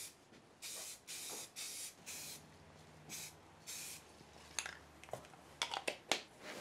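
Rust-Oleum aerosol spray paint can spraying in short bursts of hiss, four of them in the first four seconds, then several sharp clicks and taps near the end as the can is handled.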